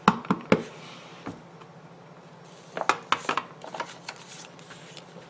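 Plastic ink pad tapped against a rubber background stamp on a clear acrylic block: three quick taps at the start, then a cluster of light clicks and knocks about three seconds in.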